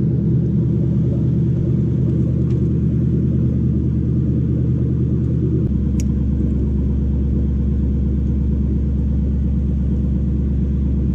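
Toyota 1UZ-FE VVTi V8 engine idling steadily. The low hum shifts slightly about halfway through, with a single faint click just after.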